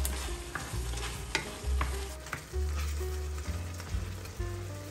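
Wooden spoon stirring a simmering tomato sauce in a stainless steel frying pan: a steady sizzle with scattered small clicks of the spoon and popping bubbles. Background music plays underneath.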